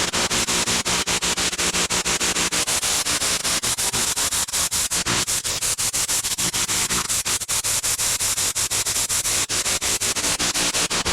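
Pressure-washing rig's engine running steadily, with a loud hiss of water spray over it.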